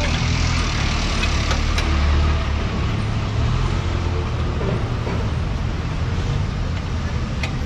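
Steady rumble of street traffic, a little louder about two seconds in.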